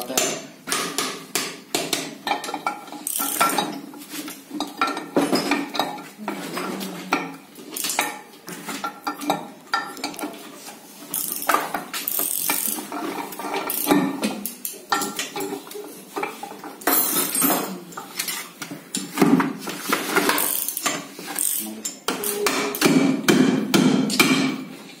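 Steel gearbox parts and hand tools clinking and knocking against the gearbox casing and a metal-topped workbench while a synchromesh gearbox's counter shaft and gears are fitted by hand: many irregular metallic clicks and knocks.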